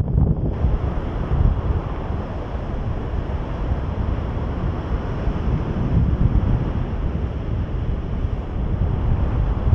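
Wind buffeting the microphone of a camera carried on a paraglider in flight: a steady, gusty low rumble.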